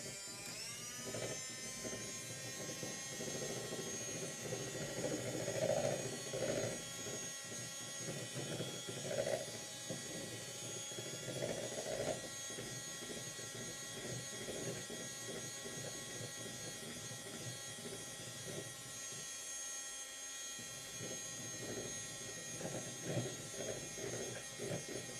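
Electric hand mixer running steadily at speed, its beaters whipping cold cream with cream cheese and icing sugar in a plastic bowl. The cream is being whipped up to about three-quarters stiffness.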